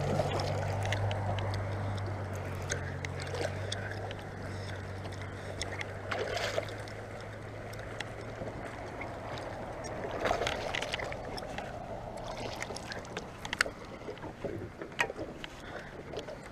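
Boat on the water with a steady low motor hum that fades out near the end, over a wash of water and wind noise, with scattered light clicks and knocks.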